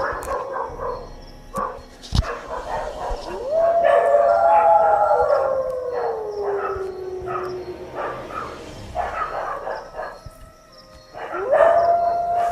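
Howling canine, most likely a dog: a long howl rises about three seconds in, holds, then slides slowly down over about four seconds, and a second howl rises and holds near the end. Shorter yipping calls come in between, with a couple of sharp clicks early in the recording.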